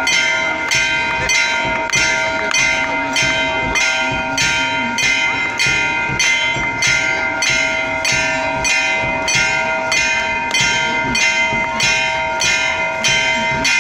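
Temple bells rung for aarti, struck in a steady rhythm of about two strokes a second, their tones ringing on between strokes.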